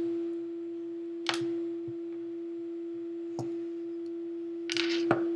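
A few short metallic clicks and a brief clatter from snap-ring pliers being handled: one click about a second in, another past three seconds, and a little cluster near the end. Under them runs a constant hum at a single pitch.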